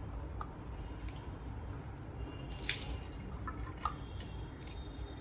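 Water dripping and trickling in a small plastic basin, with scattered small clicks and knocks from a push-button basin waste valve being worked by hand. A brief louder rush of noise comes about halfway through.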